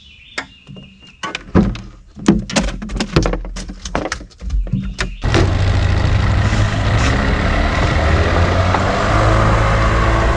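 A run of knocks and clatter on the boat as a caught fish is unhooked and handled. About five seconds in, the steady noise of the boat's motor takes over, running with a rush of wind and water.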